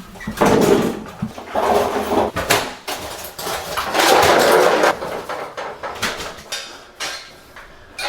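Knocks and scraping from a heavy electric water heater tank being shifted and dragged out of its drain pan. It comes in irregular noisy stretches: about half a second in, around two seconds, and loudest around four seconds.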